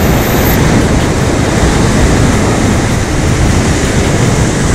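Heavy surf breaking on shore rocks in a big winter swell, with strong wind buffeting the microphone in a steady, unbroken noise.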